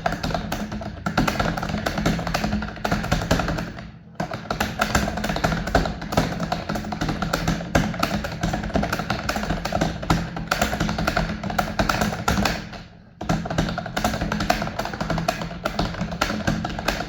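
Fast typing on a computer keyboard: a continuous clatter of rapid keystrokes, pausing briefly twice, at about four and thirteen seconds in.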